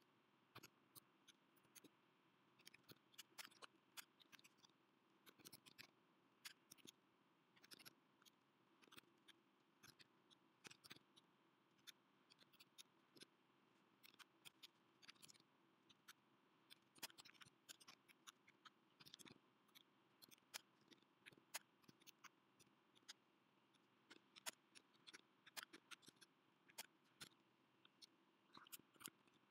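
Faint typing on a computer keyboard: irregular key clicks, a few a second, with short pauses between runs.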